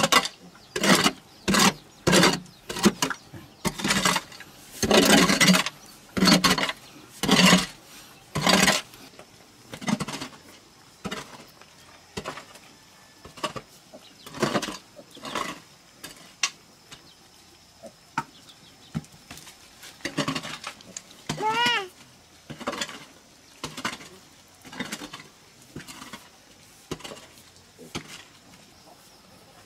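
A metal hoe striking and scraping into packed clay soil, about two strokes a second and loudest in the first nine seconds, then softer scraping and pulling of loose dirt. A short animal call about two-thirds of the way through.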